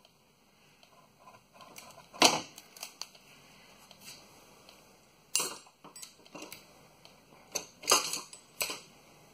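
Metal hand tools clicking and clanking against a brake line and its fittings: a string of separate sharp clicks and knocks, the loudest about two seconds in and a cluster near the end.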